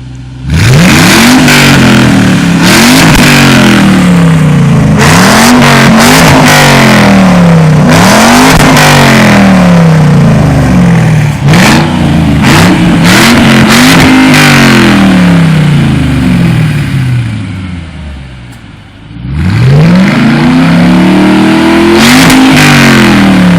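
2005 Ford Mustang GT's 4.6-litre V8 through a Pypes Pipe Bomb axle-back exhaust, revved hard again and again, each rev climbing and falling back. It drops to idle for a couple of seconds about three-quarters of the way through, then revs again.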